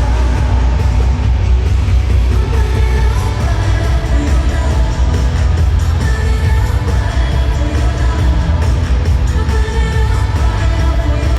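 Loud pop music with singing over a heavy, steady bass.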